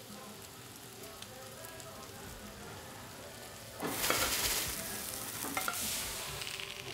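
Food frying in a hot pan on a restaurant cook line: a low hiss, then about four seconds in a sudden loud sizzle that slowly dies down.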